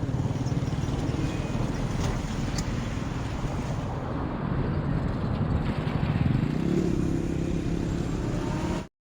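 Motor vehicle engine running close by, a steady rumble with road noise, cutting off suddenly near the end.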